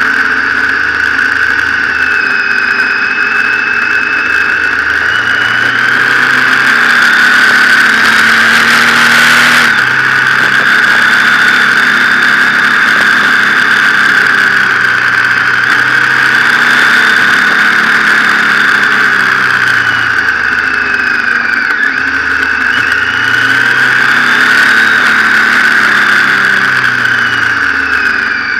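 Motorcycle engine running while riding, its pitch rising and falling repeatedly with the throttle, under a steady rush of wind noise. A louder rush of noise comes about eight to ten seconds in.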